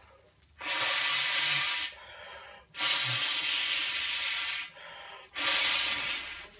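Three long, forceful blows of breath rushing through a corrugated plastic sound tube into a plastic bag, inflating it, each lasting one to two seconds with a quieter pause between.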